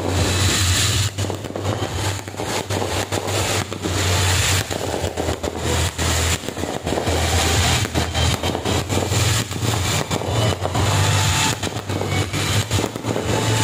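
Aerial fireworks going off close overhead: rapid, dense crackling and popping of bursting shells and stars, with a steady low hum underneath.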